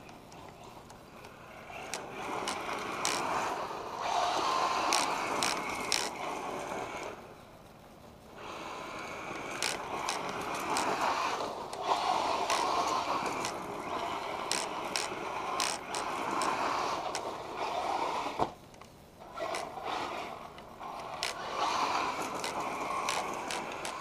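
1/8-scale electric RC car with a Castle Sidewinder 8th 2200 kV brushless motor on 3S, driven hard on gravel: bursts of motor and drivetrain noise with tyres scrabbling on the gravel and many sharp clicks. It fades twice as the car runs off, then comes back.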